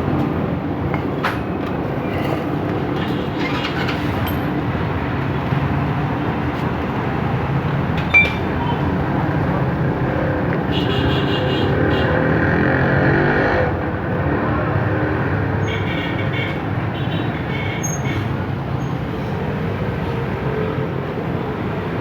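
Bajaj CT100 motorcycle's single-cylinder four-stroke engine running steadily after a full overhaul, swelling a little louder for a few seconds past the middle.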